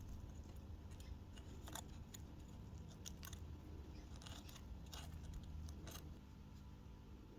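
Faint, scattered clicks and light metallic taps of small parts being handled, over a low steady hum.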